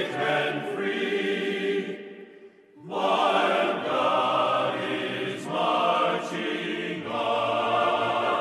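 Choral music: voices holding sustained chords. It fades out about two seconds in and comes back about a second later, with a lower part joining near the end.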